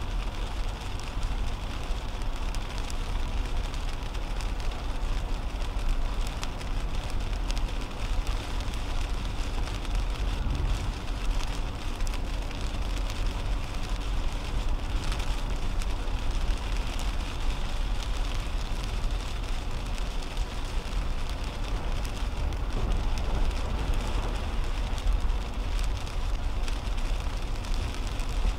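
Steady road and rain noise inside a 2010 Toyota Camry at highway speed on a rain-soaked interstate: tyres hissing on the wet pavement over a low rumble, with rain hitting the windshield.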